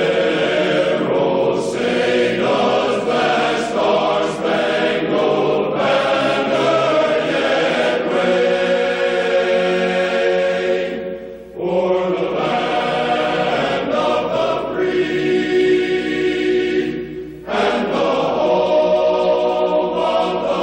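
Choral music: voices holding long chords, breaking off briefly about halfway through and again a little later before picking up.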